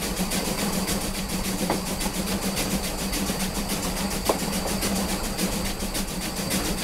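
Steam locomotive Spreewald running uphill on the rails, with a fast even mechanical clatter over a steady low hum and an occasional sharp click.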